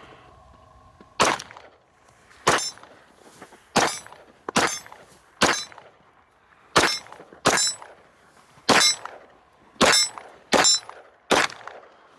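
A Zev-customized Glock pistol fired about eleven times in a steady string, roughly one shot a second. Most shots are followed by a brief metallic ring.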